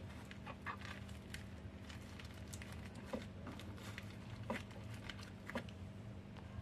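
Soft, scattered clicks and rustles of hands rolling a wet rice-paper spring roll on a plastic mesh mat, with a few sharper ticks about three, four and a half and five and a half seconds in. A steady low hum runs underneath.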